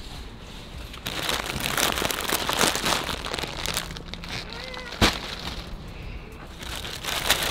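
Plastic grocery bags rustling and crinkling as they are handled, with a single sharp knock about five seconds in and another near the end.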